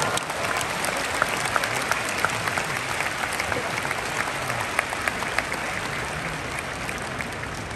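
Large arena crowd applauding a finished sumo bout: a dense, steady clatter of many hands that slowly fades.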